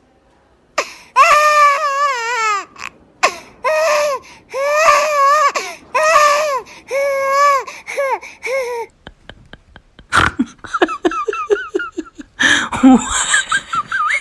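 A high-pitched crying voice, wailing in about seven drawn-out, wavering cries one after another. From about ten seconds in it turns into quick clicks and short, choppy high cries.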